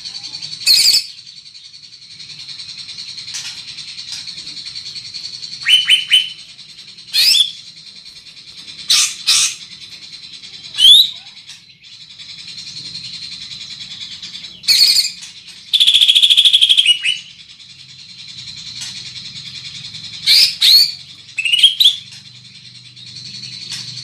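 Caged greater green leafbird (cucak ijo) singing: loud, piercing chirps and short sweeping whistled phrases every second or two, with one longer phrase of over a second about two-thirds through.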